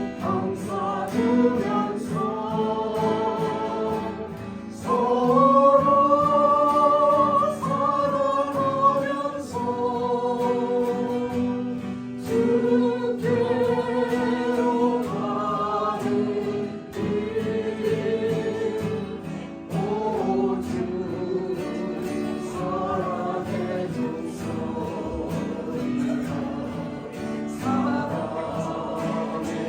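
A small mixed vocal ensemble singing a gospel hymn in harmony, with acoustic guitar accompaniment.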